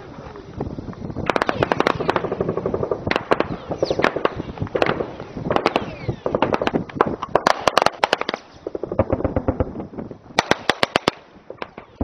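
Repeated bursts of automatic gunfire: fast strings of sharp cracks, one after another, with a short tight burst shortly before the end.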